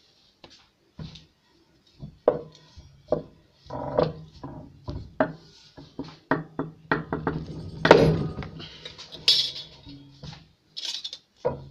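Irregular metallic clinks and knocks from working a hand screw press, stamping small metal accordion fittings, densest and loudest toward the middle. A low steady hum sits under them for most of the stretch.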